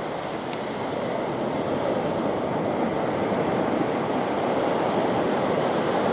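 Ocean surf washing onto the beach: a steady rushing that slowly grows louder.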